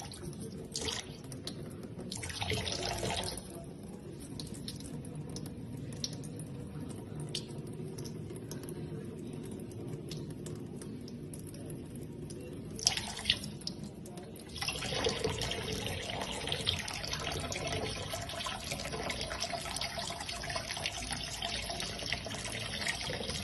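Tap water running and splashing into a sink, with short louder splashes early on. About two-thirds of the way through the flow becomes a heavier, louder steady stream.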